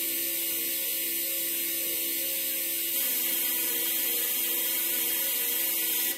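Loud, steady electronic drone from frakMSP's Fractal Voice Harmonized processing: a bright hiss over a few held low tones, with no beat. It steps up slightly about halfway and cuts off just before the end.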